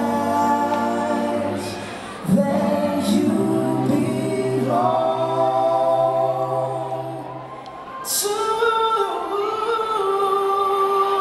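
Live pop vocals: several voices singing held harmony chords with little instrumental backing, a new chord coming in about two seconds in and again about eight seconds in.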